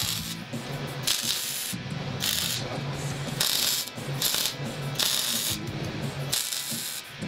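MIG welder arc crackling in a series of short stitch-weld bursts, about one a second, as a steel frame is tack-welded.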